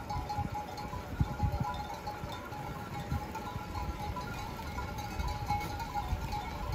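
A herd of goats and sheep on the move, many neck bells ringing and clinking together without pause over the shuffle of hooves on a gravel track.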